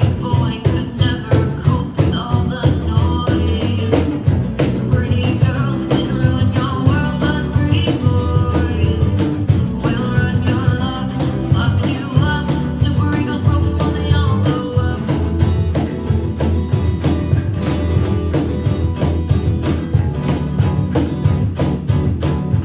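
A rock band playing live: guitar, bass and drums keeping a steady beat.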